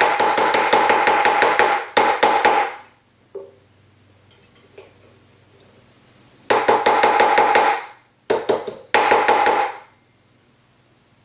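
Rapid mallet blows shaping a sterling silver cuff around a steel bracelet mandrel, several strikes a second with a ringing tone through each run. A run of about two and a half seconds, a pause of nearly four seconds, then two more short runs.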